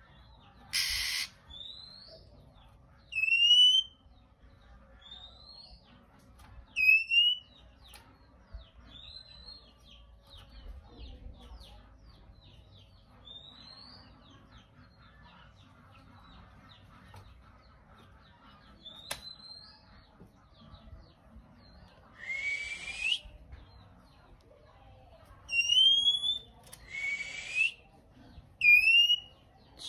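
Male oriental magpie-robin giving loud rising whistles, scattered softer rising notes, and short harsh rasping calls, the rasps bunching up near the end.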